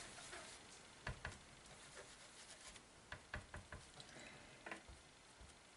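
Faint soft taps of small cut-up sponge pieces dabbing ink from ink pads onto glossy cardstock, a handful of scattered light knocks.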